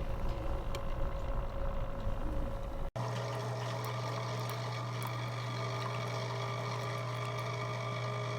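Single-serve coffee maker brewing: its pump hums steadily as water runs through. About three seconds in, the sound cuts abruptly to a steadier, deeper hum.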